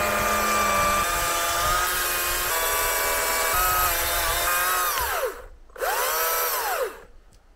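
Electric chainsaw spinning up and cutting a log into firewood lengths, its pitch stepping down slightly under load, then winding down about five seconds in, followed by one short spin-up and wind-down.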